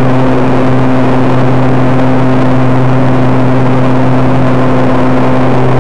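Onboard sound of a radio-controlled T-28D Trojan model airplane in flight: its motor and propeller running loud at a steady pitch, under a heavy rush of airflow over the microphone.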